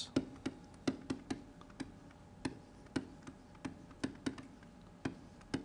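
Stylus tapping and clicking on a tablet screen while handwriting: irregular light clicks, a few a second.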